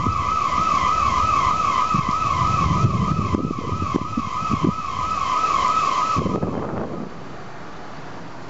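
An electronic alarm warbling, rising and falling about three times a second, over heavy rain. The alarm cuts off about six seconds in, leaving the steady hiss of heavy rain.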